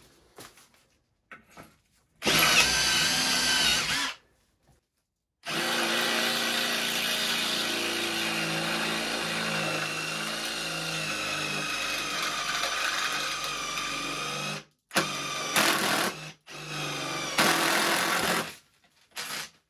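Ridgid Octane cordless impact driver spinning a hex-shank drill bit into steel square tube, not on its low-speed setting. It runs in a short burst, then a long run of about nine seconds whose whine sags slightly in pitch under load, then two short bursts near the end.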